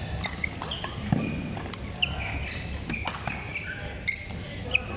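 Badminton hall sounds: court shoes squeaking on the court mat and a few sharp racket hits on shuttlecocks from play on the surrounding courts.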